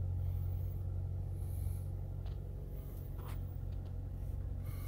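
2020 Jeep Rubicon engine idling steadily, heard from inside the cabin as a low, even hum, with no strange noises. Two faint clicks come near the middle.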